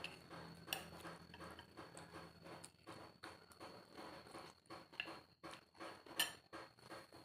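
Close-up eating of noodle soup: a run of small chewing and mouth clicks, two or three a second, with sharper clinks of cutlery against the bowl just under a second in and about six seconds in.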